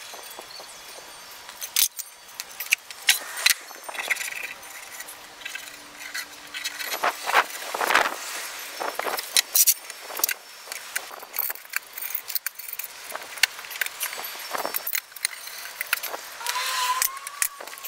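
Plywood panels and metal bar clamps being handled on a concrete floor: scattered knocks, taps and clattering throughout, with a short squeak near the end.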